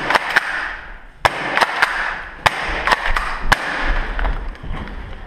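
Airsoft gunfire: about eight sharp cracks at irregular spacing, each with a short echo off the bare walls, dying away near the end.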